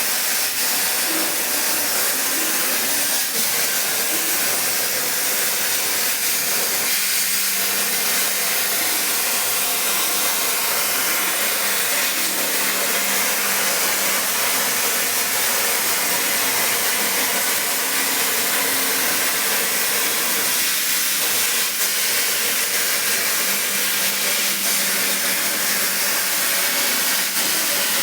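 CNC plasma cutter's torch hissing steadily as it cuts, with a low steady hum underneath.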